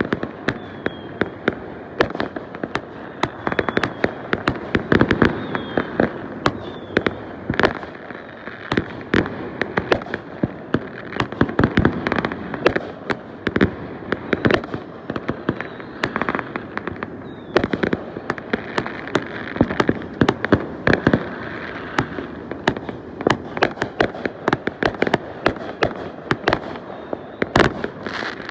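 Fireworks going off in a dense, continuous barrage: overlapping bangs and crackling pops, several a second, with louder clusters every few seconds.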